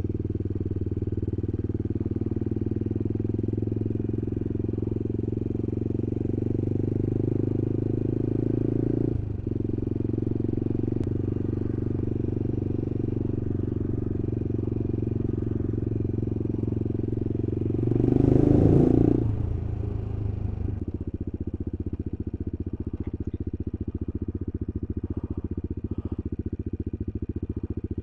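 Single-cylinder engine of a CCM Spitfire motorcycle running under way, heard from the bike's own camera. The engine note drops about nine seconds in, there is a brief loud rush about two-thirds through, and the engine then settles to a lower, quieter note as the bike slows.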